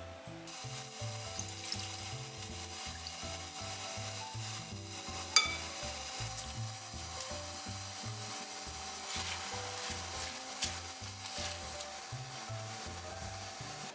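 Bubbling, sizzling liquid as fried tofu pouches simmer in a pot and leafy greens cook in a pan of boiling water, stirred with chopsticks. One sharp click about five seconds in, under soft background music.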